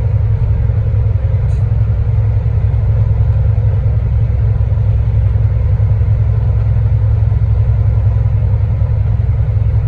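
Steady low drone of a loaded logging truck at highway speed, about 61 mph, heard inside the cab: diesel engine and road rumble running evenly without change.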